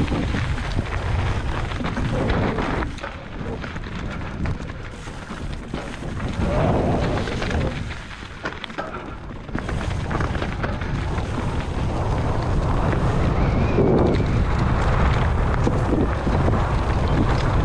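Wind buffeting the microphone as a heavy low rumble. It eases for a few seconds in the middle and then builds again.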